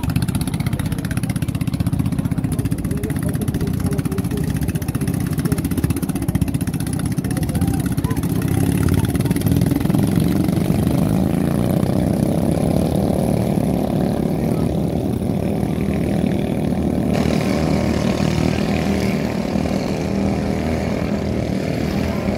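Engines of small motorized outrigger racing boats running steadily as the boats head out.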